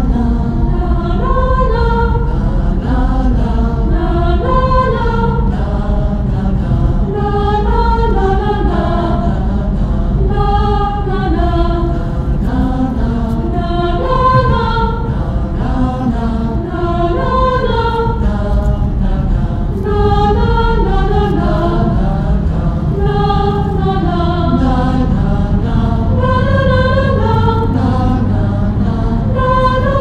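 Soundtrack music: choral singing in slow, gliding phrases over a steady low drone.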